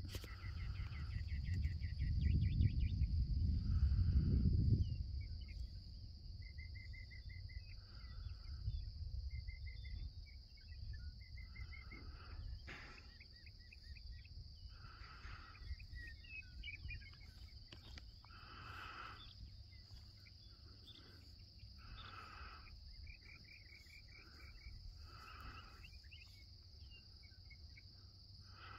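Insect chorus: a steady high drone with short pulsed chirping trills coming and going, and a lower call repeating about every three to four seconds. A low rumble is loudest in the first five seconds, then eases.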